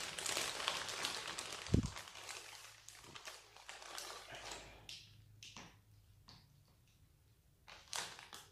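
Clear plastic bag crinkling as wiring harnesses are pulled out of it, with a dull thump about two seconds in. After that it goes quieter, with scattered light rustles and clicks from the wires and plastic connectors being handled.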